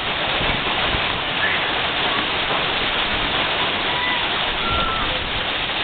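Heavy marble-sized hail falling hard, a dense, steady clatter of countless small impacts.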